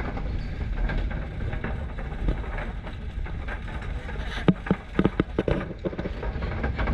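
Steady low rumble of a moving vehicle on a ride, with a quick run of sharp knocks about four and a half seconds in.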